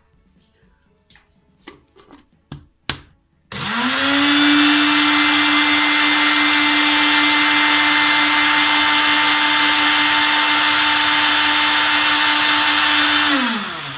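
Electric countertop blender blending mint leaves with lemon juice, salt and sugar syrup. A few light clicks of the jar and lid being handled, then the motor starts about three and a half seconds in, runs loud and steady at full speed for about ten seconds, and winds down with a falling pitch at the end.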